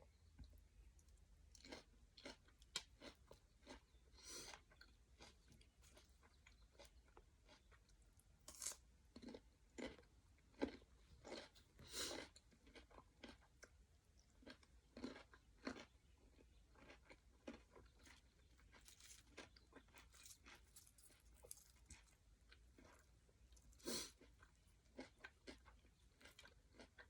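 Quiet, irregular chewing of a vermicelli noodle papaya salad, with crisp crunches and wet mouth clicks; a few louder crunching bites stand out in the middle and near the end.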